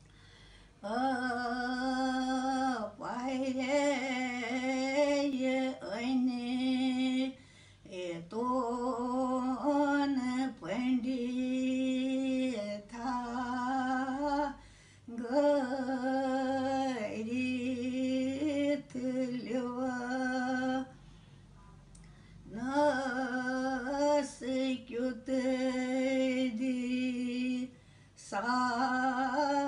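An elderly woman sings a Kashmiri wanwun solo and unaccompanied. She holds long notes with a slight waver, in phrases a few seconds long, with breaths between them and a longer pause about three-quarters of the way through.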